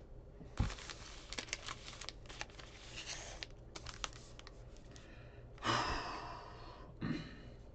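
Trading-card pack wrappers crinkling and clicking as packs are handled and taken from a cardboard blaster box, with a louder rustle of about a second near the end as a pack is worked in the hands.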